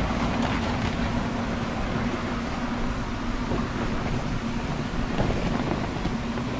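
Steady hum and rush of the electric air blower that keeps an inflatable slide inflated, running without change.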